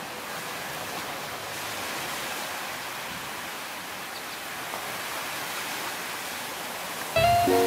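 Steady wash of ocean surf on a beach, an even hiss that swells gently. Near the end, louder plucked-string music comes in suddenly.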